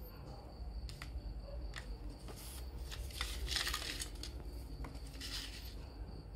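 Handling a CD jewel case and its paper booklet: a few light plastic clicks, then the booklet rustles and slides as it is closed and tucked back into the front of the case, with a second rustle near the end.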